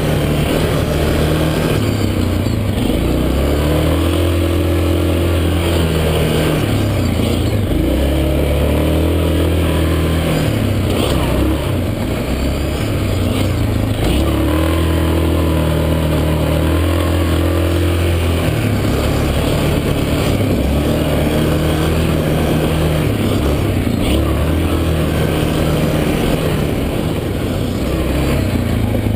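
Yamaha Grizzly 450 ATV's single-cylinder four-stroke engine running under way on a dirt trail, its pitch rising and falling again and again as the throttle is opened and eased off.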